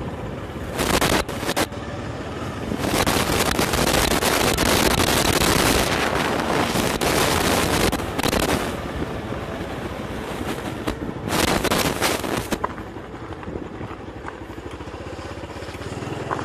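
Motorbike engine running at riding speed, with loud rushes of wind over the microphone: a short one about a second in, a long one from about 3 to 8 seconds in, and another around 11 to 12 seconds in.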